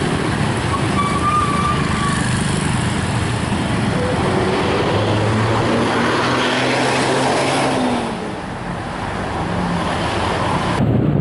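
Heavy road traffic passing close: a box truck and a large intercity coach bus driving by, with diesel engine drone and tyre noise. The sound changes abruptly near the end.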